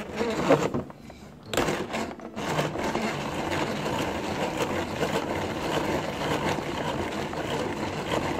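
Hand-cranked plastic toy slush maker being turned by its top handle, its paddles churning crushed ice in the cups with a steady grinding crunch that starts about a second and a half in.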